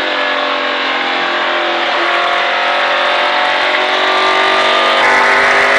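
Stock car's V8 engine heard from inside the cockpit over road and wind noise. It holds a steady pitch through the turn, then slowly rises in pitch and gets a little louder as the car accelerates onto the straight.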